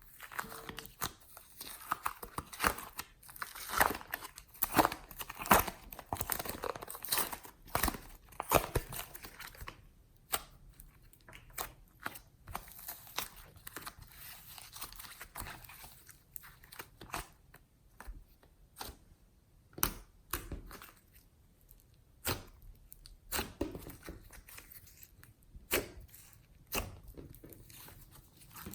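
Slime being squished and stretched by hand, giving a run of sharp crackles and pops. They come thick and fast for about the first ten seconds, then as scattered single pops.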